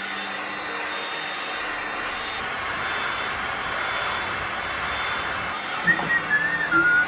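Electric heat gun running steadily, its fan blowing hot air over an old rubber boot sole to soften the glue. A melody starts near the end.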